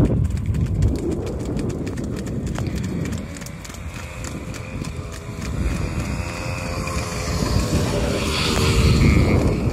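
A motor vehicle engine running, with a low rumbling noise. Its hum comes in about three seconds in and grows louder towards the end.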